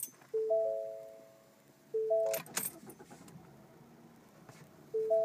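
Ford Fusion's dashboard warning chime: a short chime of three clear notes, sounding three times, with a couple of sharp clicks about halfway through.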